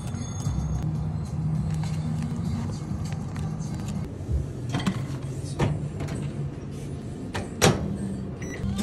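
Plastic film and foil packaging on a convenience-store rice bowl being peeled and handled, giving a few sharp clicks and crinkles, with a louder click at the microwave near the end. A steady low hum runs underneath.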